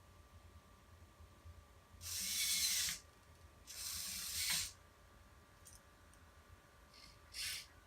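Hobby servos in a 3D-printed robot hand and wrist whirring in three short bursts of movement: two of about a second each, then a brief one near the end.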